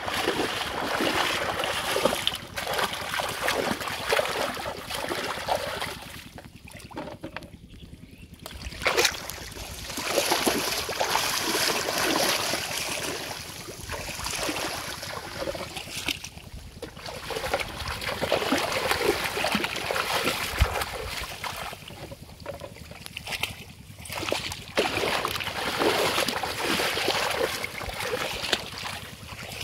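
Shallow pond water splashing and sloshing as a person wades through it and gropes about in it by hand, in uneven stretches with short pauses.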